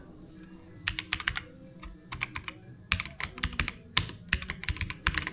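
Keys of a new Acer Nitro mechanical keyboard being pressed in quick runs of sharp clicks: a short run about a second in and a longer one from about three seconds in.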